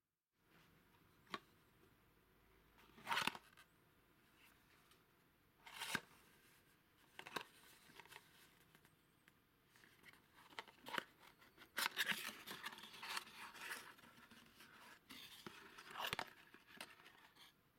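Small white cardboard box being handled and opened: card flaps scraping and rustling in scattered bursts, with a few sharp taps.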